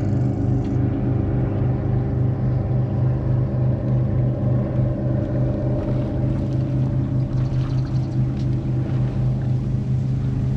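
Bass boat's motor running steadily, a constant low hum.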